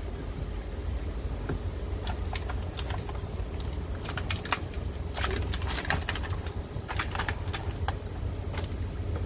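Food frying in oil in a pan, with irregular crackling pops that come thickest in the middle, over a steady low rumble.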